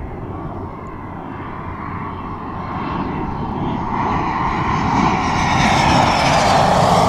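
A T-45 Goshawk jet trainer's turbofan engine, growing steadily louder as the jet approaches low over the runway. At the very end the whine starts to drop in pitch as the jet passes.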